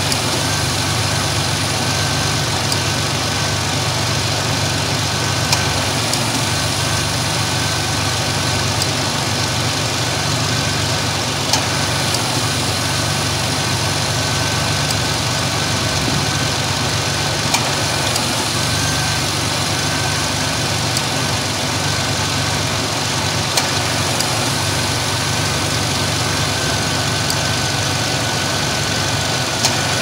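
2002 Ford Ranger engine idling steadily under the hood, with a light click about every six seconds as the AC compressor clutch briefly engages: the system is short-cycling because it is still low on refrigerant.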